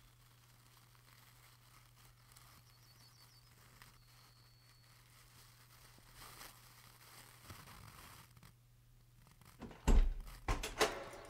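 Faint steady low hum, then near the end a quick run of sharp clunks and clicks as a door knob and latch are worked.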